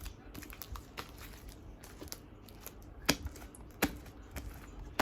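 Sticky homemade slime being kneaded and pulled off the hands, giving a scatter of small wet clicks and pops, with two sharper snaps a little past the middle.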